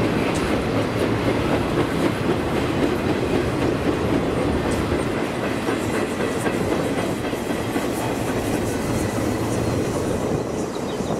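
Trailer-laden railroad flatcars rolling past at speed: a steady wheel-on-rail rumble with the clickety-clack of wheels over rail joints. It eases slightly near the end as the last car passes.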